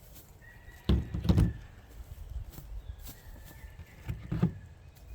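Two pairs of sharp metallic clacks, about three seconds apart, from the Henry lever-action .45-70 rifle being handled, with a faint steady high whine behind them.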